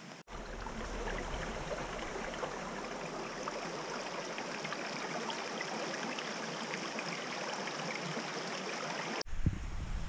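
Shallow creek running and babbling over rocks, a steady rushing with fine splashes. Near the end it cuts to a few low thumps.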